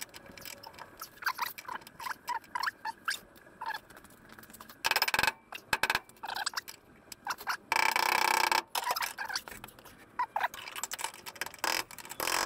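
A spanner ticking and clinking against metal as the nut on a front shock absorber mount is done up, with two louder runs of rapid clicking about five and eight seconds in.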